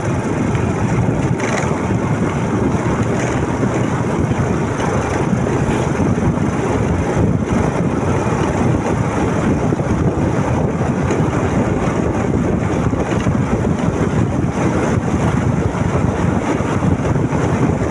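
Steady wind rumble on the microphone of a moving motorcycle, mixed with road and engine noise, unbroken throughout.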